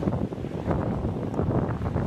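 Wind buffeting the microphone in uneven gusts, a rumbling rustle with no voices.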